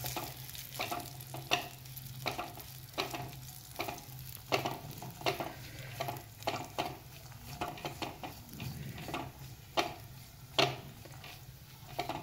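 A spatula stirring chopped almonds, cashews and pistachios in a little ghee in a metal kadai: irregular scrapes and clicks of the spatula and nut pieces against the pan, about one or two a second, as the nuts are roasted on a low flame until they change colour.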